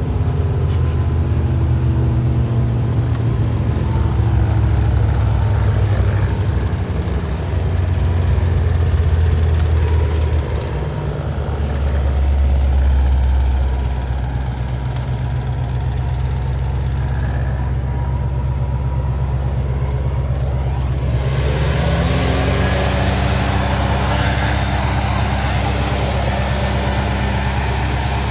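Large engine running steadily at low speed; about two-thirds of the way through its pitch rises a little and holds there.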